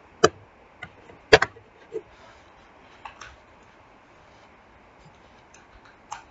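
A handful of sharp, irregular clicks and taps, about eight in all, most of them in the first three seconds and one near the end, over a faint steady hiss.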